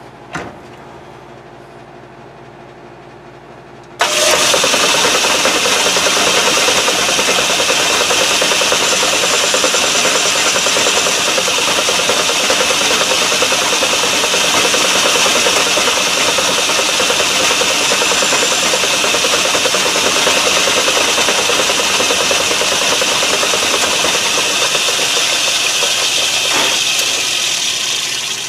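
Metal lathe switched on about four seconds in, its spindle and chuck running steadily at speed with a loud whir and high hiss. A click comes shortly before the sound winds down near the end.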